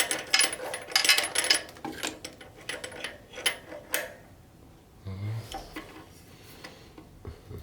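Rapid metallic clicks and rattles of hands working the portable planer's cutter blade and its clamping bolts, followed a little after five seconds by a single low thump.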